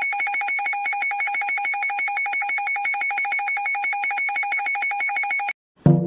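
Emergency alert alarm tone: an electronic tone on two steady pitches, one low and one high, pulsing rapidly at about ten beats a second like a telephone ring, then cutting off suddenly near the end.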